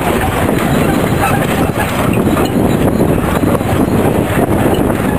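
A vehicle driving: steady engine and road noise heard from inside the moving vehicle.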